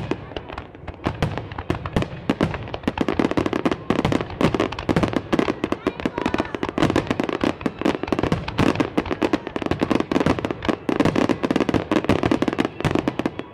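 A dense barrage of aerial fireworks bursting and crackling, many reports a second, cutting off abruptly at the end.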